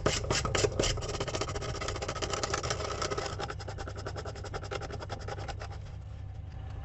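Kitchen faucet's threaded mounting nut being spun up the shank by hand, its threads giving a rapid run of small clicks that thins out over the last few seconds as it is tightened.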